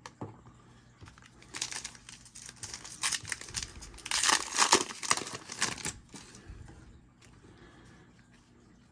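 Foil wrapper of a trading card pack crinkling as it is handled and torn open, from about a second and a half in until about six seconds, loudest a little past the middle.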